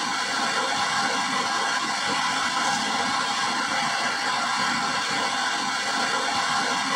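Steady rushing of an industrial basket washing machine's side channel blower, driving hot air through the wash chamber in the drying phase.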